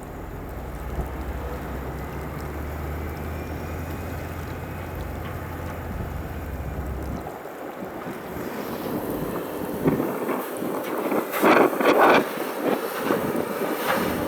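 Heavy diesel engine running with a steady low hum. About eight seconds in, the hum drops away and a rougher rumbling takes over, with loud clattering for a couple of seconds near the end, typical of an excavator bucket dumping gravel and stones into a dump truck's body.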